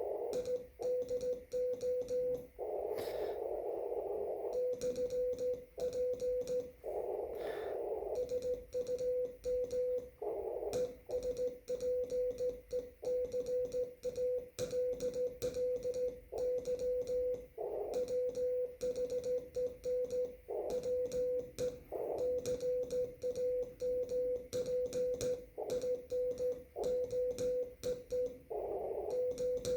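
Morse code (CW) from an amateur radio: a single steady-pitched tone keyed on and off in quick dots and dashes, with light clicks in time with the keying. A few times a broader rush of noise swells around the tone, the longest about three seconds in.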